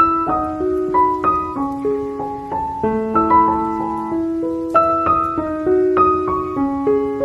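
Background piano music: a melody of single struck notes moving every half second or so over held lower notes.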